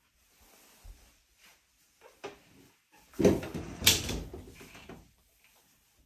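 Metal-framed glass shower door being opened: a loud rattle from about three seconds in, with sharp knocks just after three seconds and near four seconds. Lighter knocks and shuffles come before it.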